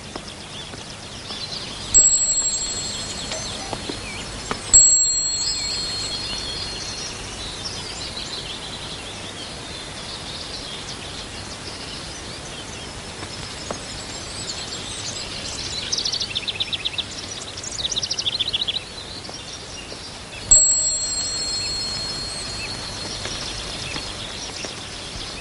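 Three bright chiming pings, each a sudden strike that rings on and fades over about a second, over steady birdsong. Near the middle, two short bursts of rapid trilling.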